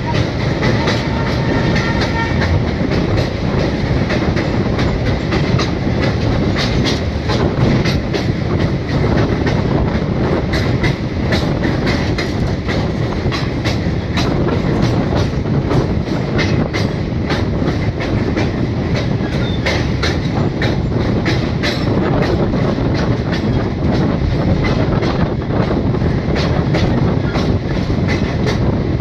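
Train running across a steel truss rail bridge, heard from aboard: a steady, loud rumble of wheels on rails with a dense run of quick clacks.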